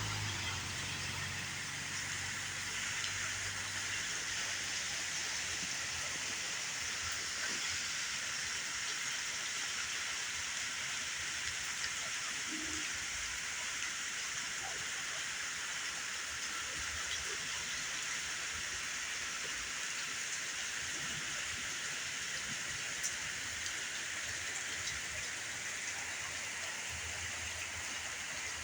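Steady rain falling, an even hiss with a few faint scattered drips.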